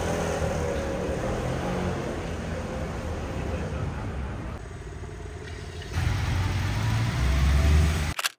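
City street traffic: car engines and tyre noise. About two-thirds of the way through, a louder engine rumble comes in and builds, then the sound cuts off abruptly near the end.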